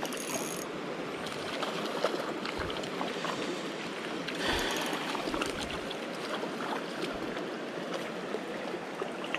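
Shallow creek water running over rocks, a steady rush, with a quick run of light clicks right at the start and scattered small ticks through it; the rush swells slightly about four and a half seconds in.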